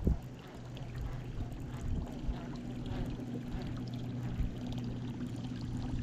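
Water lapping and trickling against a small fishing boat's hull, with a steady low hum underneath and a short knock right at the start.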